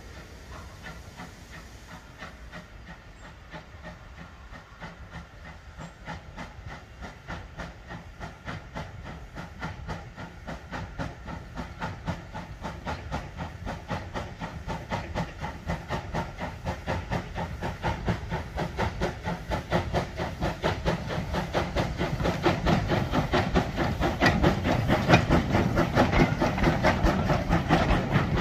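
Small industrial steam tank engine working a train, its exhaust chuffing in a steady rhythm. The beats grow steadily louder as it approaches and passes close.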